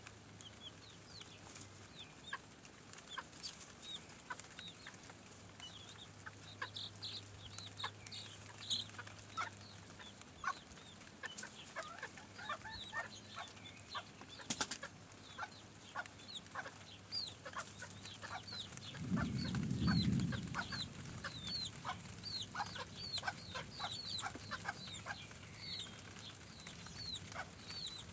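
Chickens on the move: many short, high chirps from the chicks and clucking from the hens, going on throughout. About two-thirds of the way in comes a brief low rumble, the loudest sound.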